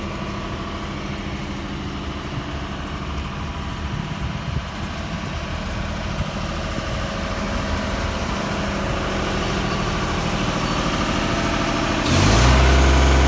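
Diesel engine of a 2014 Genie Z45/25JRT boom lift idling steadily. It grows slowly louder and jumps up sharply near the end.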